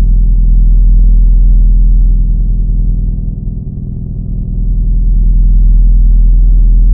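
A loud, low, steady droning rumble. It dips in loudness about halfway through, then swells again.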